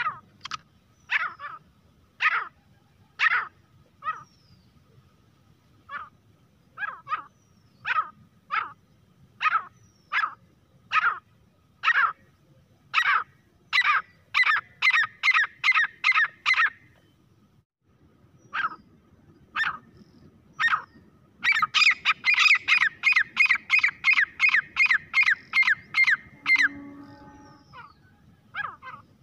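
Grey francolin calling: sharp, harsh repeated notes about one a second that quicken into a fast run, break off, then pick up again as a very rapid rattling series of about four notes a second, with a few single notes near the end.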